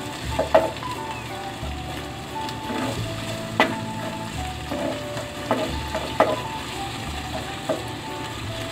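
Onion and garlic sizzling as they fry in oil in a stainless steel pan, while a spatula stirs them, clicking and scraping against the pan several times. The sharpest knocks come about half a second in and again after three and a half seconds.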